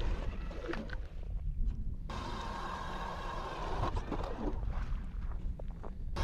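Wind buffeting the microphone as a gusty low rumble, with a few faint crunches of boots on the ice about a second in.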